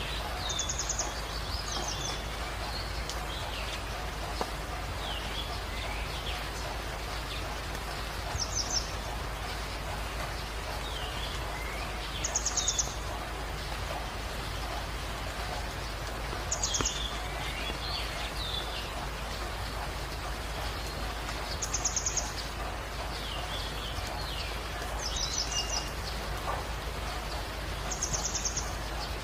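Birdsong over a steady background hiss: a short, high trilled call repeats every few seconds, with lower slurred chirps in between.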